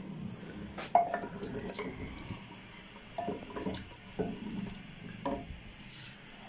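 Wooden spoon stirring mutton and its broth in an earthenware handi, the liquid sloshing, with a series of short knocks and scrapes of the spoon against the clay pot, the sharpest about a second in.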